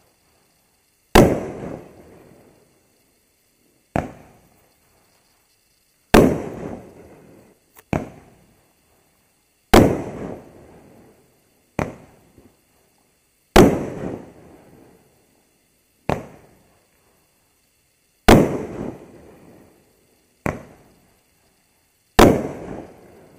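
Raccoon Fireworks 'Best of Breed' 500-gram aerial cake firing its shots one at a time, about every four seconds. Each shot is a sharp launch thump followed about two seconds later by a louder shell break, whose tail fades over a second or so.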